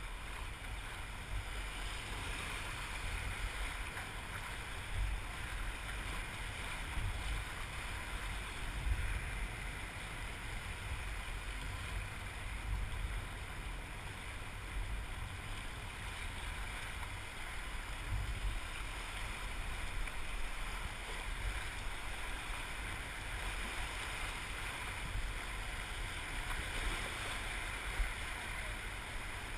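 Steady rushing of whitewater in a river rapid, heard from an open canoe running it, with uneven low rumbling gusts of wind on the microphone.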